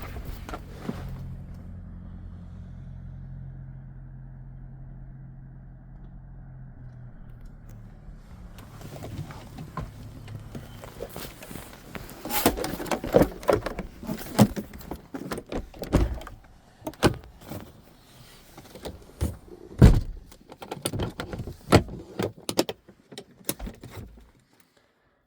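A steady low hum for the first several seconds, then a long run of irregular knocks, thumps and rattles from handling and moving about inside a Cessna 421C's cabin, with two heavier thumps in the middle. It cuts to near silence just before the end.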